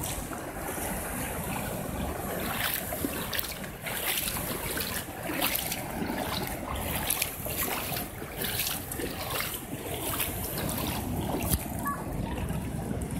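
Shallow water lapping and trickling, with frequent small irregular splashes, and wind rumbling on the microphone.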